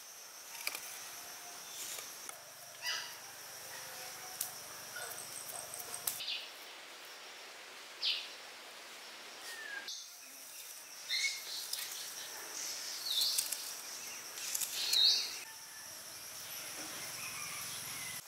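Outdoor ambience: a steady high insect drone with scattered short, high chirping calls. The background changes abruptly twice, as if cut.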